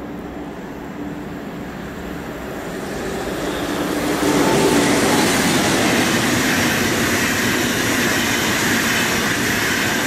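ICE high-speed electric train approaching and passing at speed. The rush of wheels on rails and air swells from about two seconds in and holds loud and steady from about four seconds.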